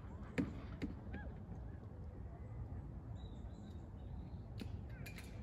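Waterfowl on the lake calling a few times in short calls, over a steady low rumble of background noise, with a few brief knocks.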